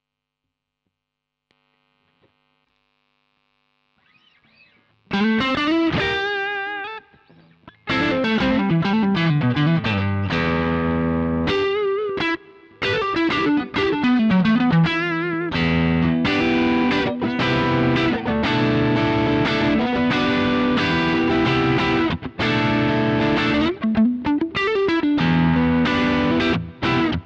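JV Custom Origin T Telecaster-style electric guitar with two single-coil pickups, played with overdrive. After about five seconds of near silence a chord rings with vibrato, then a continuous run of crunchy riffs with notes bending and sliding up and down.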